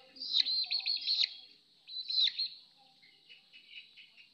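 A young chicken peeping: quick runs of high chirps, a loud run of about a second near the start and another short burst about two seconds in, then fainter peeps.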